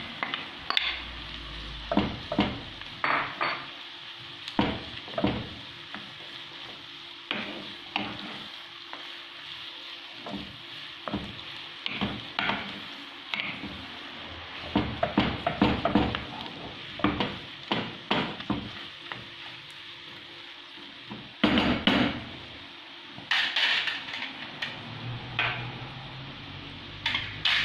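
Minced meat sizzling in a frying pan with onions, while a wooden spoon stirs and breaks it up, knocking and scraping against the pan at irregular moments.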